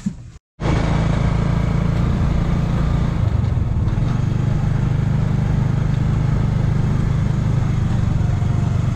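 Motorcycle engine of a tricycle running steadily while riding along a road, starting abruptly about half a second in, with a slight change in engine note about three seconds in.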